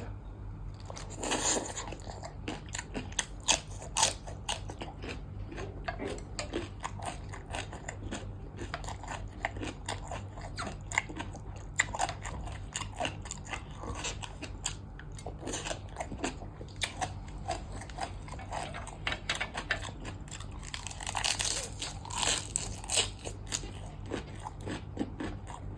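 Close-up eating: a person chewing and crunching mouthfuls of som tam with raw blue crab and crisp fresh okra, a steady run of crunches and wet mouth clicks. The crunching is loudest about a second in and again near the end, over a steady low hum.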